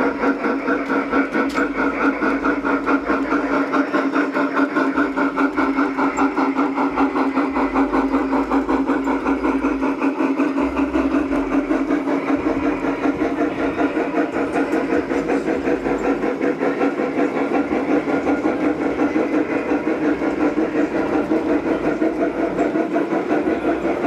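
G-scale model steam locomotives hauling a long freight train, giving a steady, even chuffing of about four beats a second.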